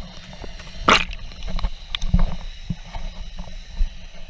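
Underwater sound picked up by a submerged camera: a steady low, muffled rumble of water against the housing, with scattered knocks and clicks and one louder crackle about a second in.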